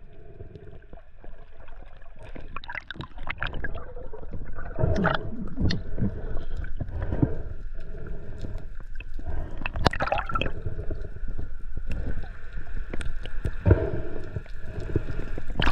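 Water gurgling and sloshing, with irregular short bubbly pops over a faint steady hum.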